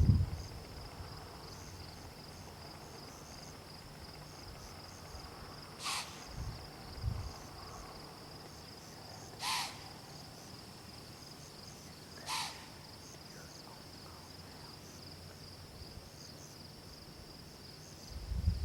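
A rutting deer gives three short, hissing snorts about three seconds apart, over a steady chirring of insects.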